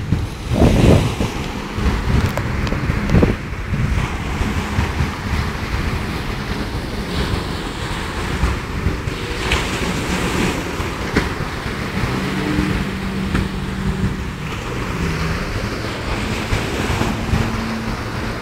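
Waves breaking at the shore and wind buffeting the microphone, with the faint steady hum of jet ski engines out on the water, plainest in the second half.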